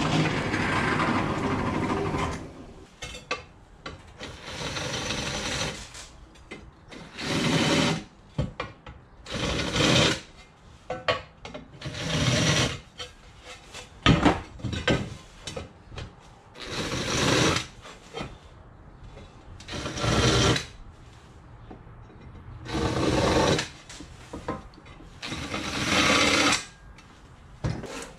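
Bench drill press running and cutting into an aluminium sheet, stopping about two seconds in. Then a cordless drill works the aluminium plate in about seven short runs a few seconds apart, with a sharp knock about halfway through.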